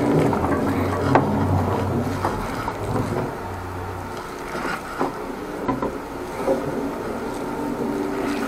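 The 13-horsepower petrol engine of a high-pressure drain jetter runs steadily with a low hum that weakens about four seconds in, with scattered short knocks and clicks.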